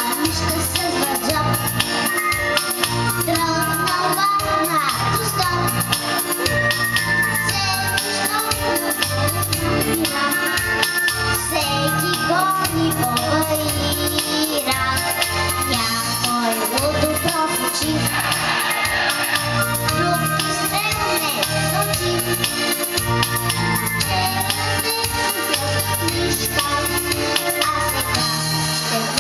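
A boy singing into a handheld microphone over backing music with a steady beat.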